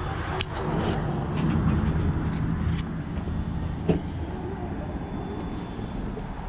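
Clothes hangers clicking and scraping as they are pushed along a clothes rack, with a few sharp clacks, over a steady low rumble.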